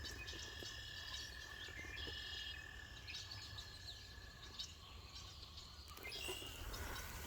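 Frogs calling near a pond in short repeated trills, over a steady thin high tone that stops a little past halfway through and a low rumble throughout.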